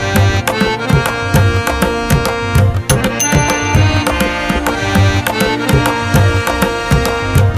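Background music with tabla-like drums: regular low drum strokes, several a second, under sustained melodic instruments.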